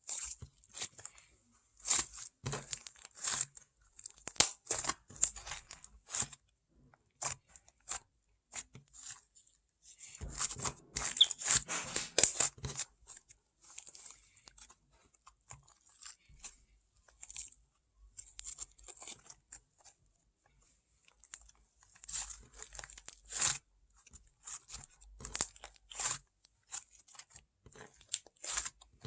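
Paper being folded and creased by hand while making a paper rose: intermittent sharp crackles and rustles as the sheet is bent and the folds pressed down, with a busier stretch of handling about a third of the way in.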